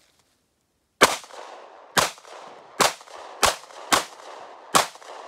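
A pistol fired seven times in quick succession, the first shot about a second in, with shots irregularly spaced half a second to a second apart and each followed by a short echoing tail.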